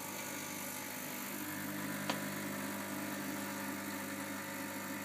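ECM Barista espresso machine humming steadily during pre-infusion of an espresso shot, with a faint click about two seconds in.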